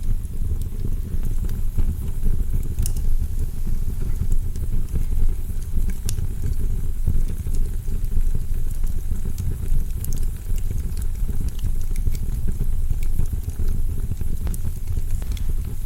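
Wood fire burning in a fireplace: a steady low rumble with scattered sharp crackles and pops.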